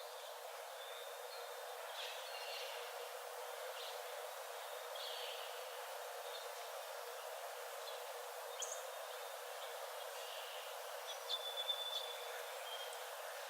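Forest birds giving scattered short chirps and whistles over a steady background hiss, with a brighter, louder held whistle near the end.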